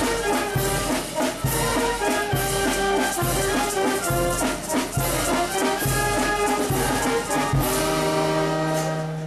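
Oaxacan brass band (banda filarmónica) playing a dance tune with a steady bass beat, ending on a long held chord near the end.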